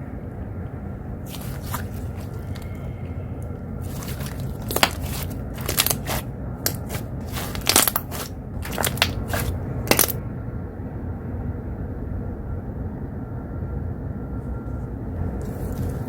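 Slime being pressed and worked by hand, giving a run of sharp crackling pops that is thickest and loudest in the middle stretch, then stops. Under it runs a steady low rumble of outside noise coming through an open window.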